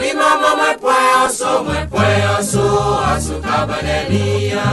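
St. Lucian folk song performed by a vocal group: several voices singing together in chorus, with low bass notes joining about two seconds in.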